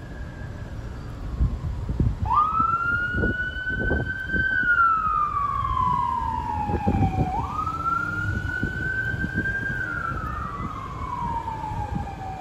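Ambulance siren on wail, its pitch sweeping up quickly and then gliding slowly down, each cycle taking about five seconds, as the medic unit responds to a call.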